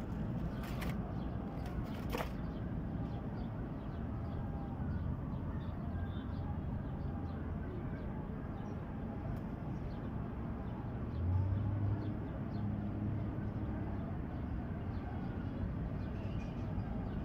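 Steady low outdoor background rumble, with a few sharp handling clicks near the start and a brief louder low hum about eleven seconds in.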